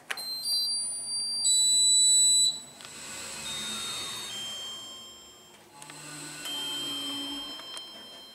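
Electronic lift chime: a loud, high two-note tone, each note held about a second, the second note lower. It is followed by a softer falling pair of tones and then one more soft tone.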